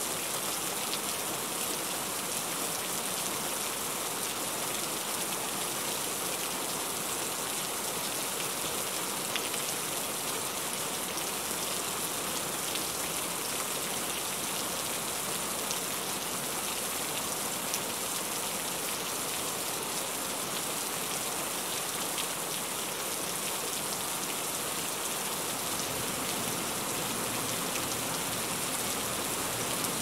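Heavy rain falling steadily: an even hiss of many drops splashing on wet surfaces.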